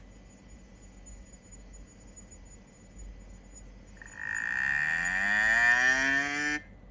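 A cow mooing once, a long call that begins about four seconds in and rises in pitch, then cuts off abruptly.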